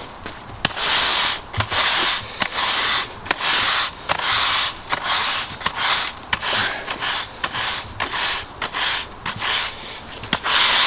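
Brush sweeping kiln-dried sand over block paving, a run of scratchy swishing strokes about one to two a second with the odd click, working the sand down into the joints.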